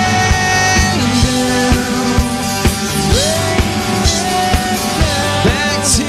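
Live rock band playing an instrumental passage between sung lines: drum kit keeping a steady beat under electric guitar, with a melody line that slides up and down in pitch.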